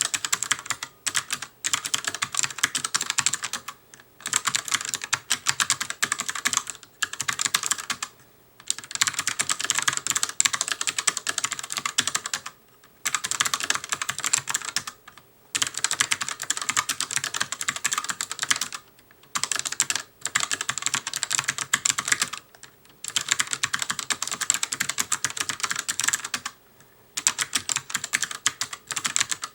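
Fast touch-typing on an ELECOM ARMA TK-ARMA50BK low-profile mechanical gaming keyboard with clicky switches: dense runs of sharp key clicks, broken every few seconds by short pauses.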